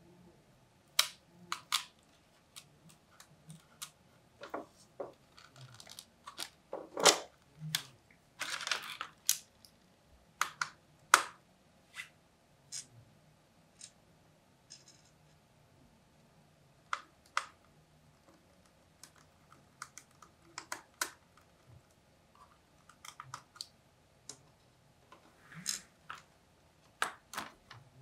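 Irregular clicks, taps and short plastic scrapes from opening an Asus Q405UA laptop: its keyboard deck is pried up by hand and screws are worked with a small precision screwdriver.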